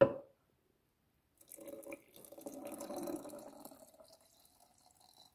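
A short knock right at the start, then ginger-and-soju liquid pouring from a glass blender jar into a glass jar for about three seconds, tapering off as the pour ends.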